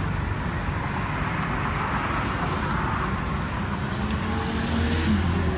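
Road traffic running steadily, with a motor vehicle's engine hum coming in and growing louder near the end.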